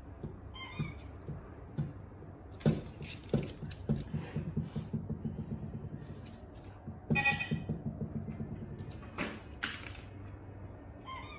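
A plastic rocker puzzle toy knocked by a dog and rocking on a hardwood floor: sharp knocks, and two rapid rattling runs of about a second and a half each. Brief electronic tones sound near the start and about seven seconds in.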